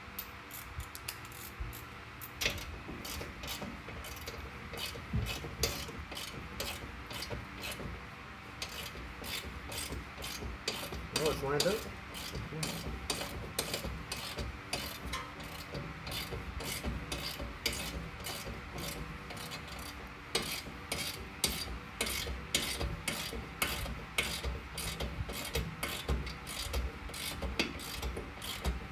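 Hand ratchet wrench clicking in a steady rhythm of about three to four clicks a second as a rear suspension bolt is run in.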